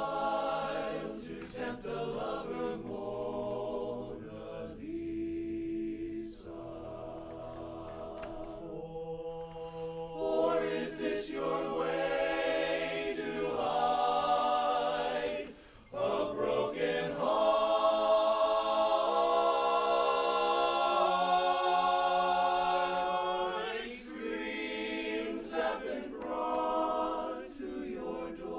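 Men's barbershop chorus singing a cappella in close harmony, moving through held chords. About halfway it breaks off briefly, then comes back in with a long, loud sustained chord.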